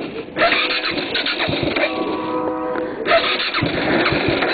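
Cruiser motorcycle's electric starter cranking the engine without it catching, in long attempts broken off briefly just after the start and again about three seconds in.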